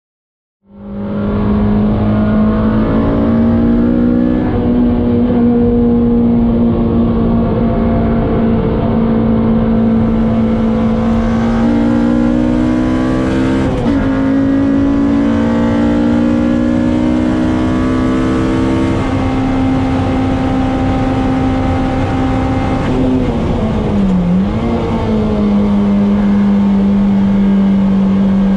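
Honda K24 2.4-litre inline-four in a mid-engined Toyota MR2, heard from inside the cabin while it is driven hard on a race track. The engine runs at high revs, its pitch climbing slowly, then dips briefly and comes back about three-quarters of the way through.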